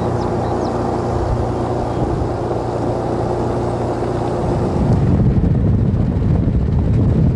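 Toyota Land Cruiser FZJ80 driving at speed, heard from inside the vehicle: a steady drone of engine and tyres. About five seconds in it turns to a rougher, louder low rumble with wind buffeting the microphone.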